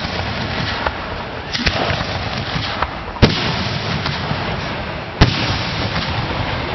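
Fireworks shells bursting, a handful of sharp bangs with the two loudest about three and five seconds in, over a steady background hubbub.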